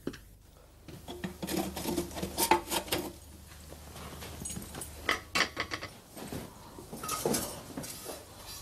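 Pots, pans and kitchen utensils clinking and knocking irregularly, in two busy stretches with quieter gaps.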